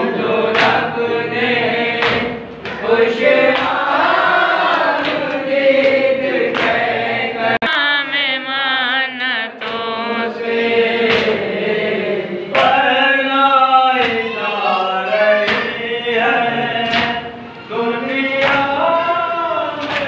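Men's voices chanting a nauha, a Shia lament, in unison, with a lead voice and the group answering. Sharp slaps come at a slow, even beat about every second and a half.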